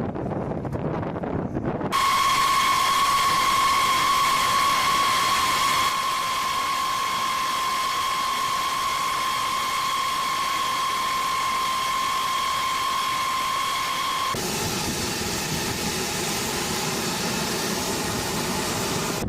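B-52H Stratofortress turbofan engines running: a low rumble, then from about two seconds in a loud hiss with a steady high-pitched whine. The whine stops abruptly about fourteen seconds in, giving way to a lower, rougher engine noise.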